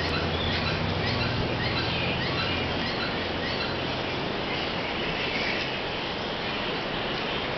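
Birds chirping over and over above a steady outdoor noise haze, with a low hum that fades out about three seconds in.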